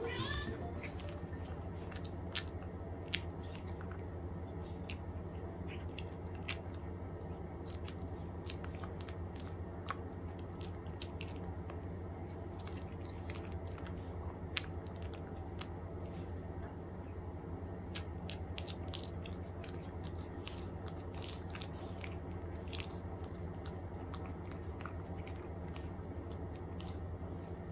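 A cat eating from a dish: soft wet chewing and lip-smacking with many small irregular clicks, then licking the empty dish.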